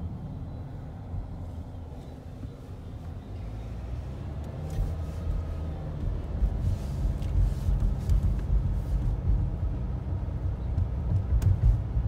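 Low, steady rumble of tyres and engine heard from inside a moving car, growing louder about halfway through as the car picks up speed.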